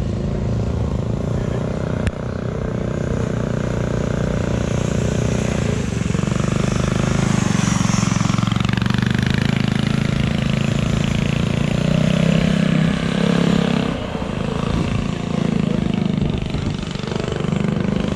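Off-road vehicle engine running under throttle, easing off briefly a few times.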